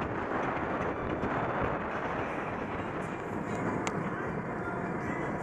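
Steady road and wind noise of a car driving at highway speed, heard from inside the cabin. A single short click comes about four seconds in.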